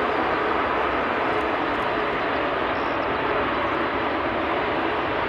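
Airbus A380-841 airliner's four Rolls-Royce Trent 970 turbofan engines running steadily at low taxi thrust as the jet turns to line up for take-off.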